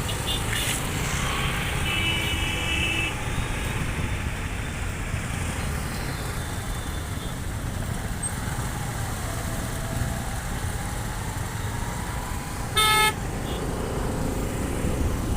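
Steady low rumble of road traffic on a bridge, with a vehicle horn sounding for about a second about two seconds in and a short, loud horn toot near the end.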